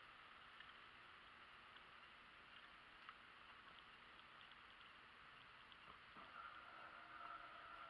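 Near silence: faint steady background hiss with a few tiny ticks. About six seconds in, a faint steady hum comes in and lasts until near the end.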